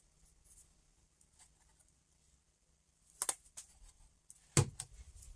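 Plastic handling noise from an astronaut star projector and its remote being turned over in the hands: a few sharp clicks about three seconds in, then a louder knock a second and a half later, followed by small rattles.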